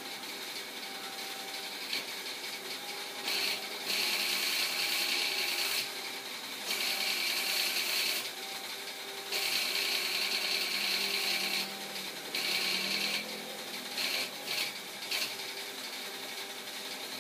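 Car-wash foam sprayed onto a car from a hose-fed lance in about five hissing bursts of one to three seconds, over a steady machine hum.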